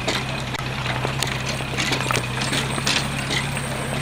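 A pirate-ship float rattling and knocking on its trailer as it is towed, with irregular clacks and knocks over a steady low hum from the moving tow rig.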